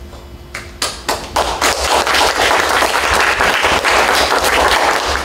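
Audience applauding: a few single claps about a second in, filling out into steady applause.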